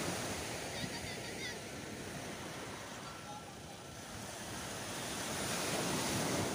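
Small waves breaking and washing up a sandy beach, with some wind on the microphone; the wash eases in the middle and swells again near the end.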